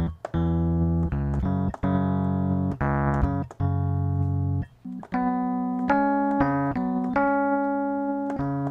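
Sampled Rhodes electric piano (Spectrasonics Keyscape 'LA Custom') played from the pads of a MIDI controller, with the pads mapped to a C minor pentatonic scale. It plays low notes for the first half, then higher notes from about five seconds in, and stops abruptly at the end.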